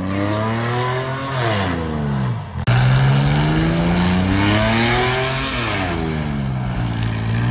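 Car engine revving hard, its pitch climbing and dropping back several times, over the rushing hiss of spinning tyres in a smoky burnout. The sound breaks off abruptly about two and a half seconds in and comes back louder.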